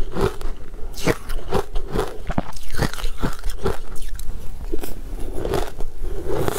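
Ice being crunched between the teeth, close to a lapel microphone: a quick run of sharp, irregular crunches, thinning out about four seconds in and picking up again near the end.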